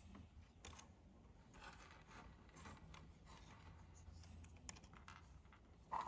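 Faint rustling and light taps of a paper cut-out and card pieces being handled and set down on a work board, with a louder brief rustle just before the end.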